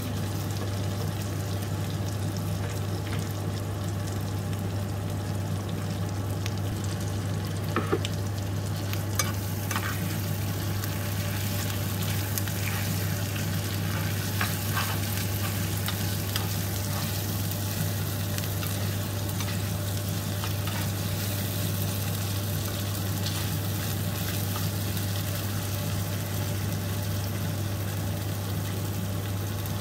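Potatoes, onions and spice paste frying and sizzling steadily in a speckled nonstick frying pan over a gas burner, with a steady low hum underneath. A few sharp taps and scrapes of a spatula against the pan come roughly a third to halfway in as the food is stirred.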